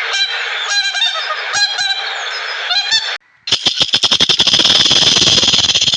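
Repeated honking calls, like a goose's, for about three seconds. After a brief break, a loud, fast rattle of clicks begins.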